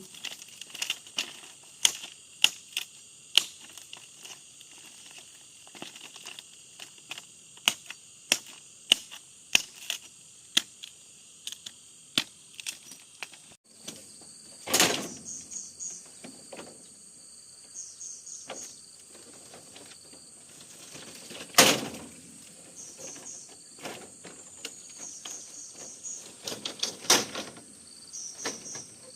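An irregular run of sharp clicks and taps, with three heavier knocks partway through and near the end, over steady insect chirring and short repeated bird chirps.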